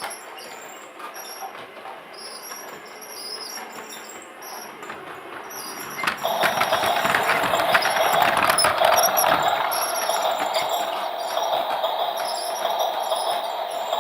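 Toy train running with a quiet rattling clatter, which about six seconds in turns into a louder, steady whirring rattle.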